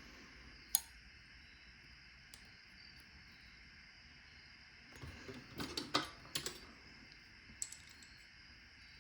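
Small metallic clicks and rattles from a padlock and hand tools being handled during disassembly: a single click about a second in, a quick cluster of clicks and rattles around the middle, and one more click near the end.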